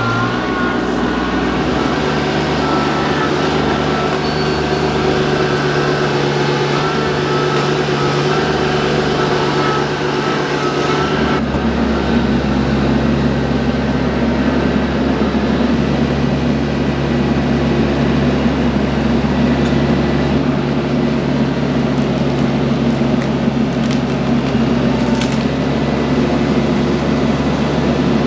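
TYM compact diesel tractor engine running steadily while working its hydraulic front-loader attachments, with a higher whine that wavers up and down over it. About eleven seconds in, the sound changes abruptly to a deeper, steadier engine note.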